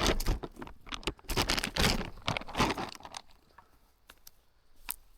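Dry crunching and rustling of forest litter in bursts for about three seconds, then a few sharp clicks.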